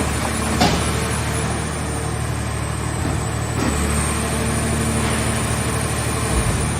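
Car-body baler's engine and hydraulic power unit running steadily, with a sharp metallic knock about half a second in and another short clunk later.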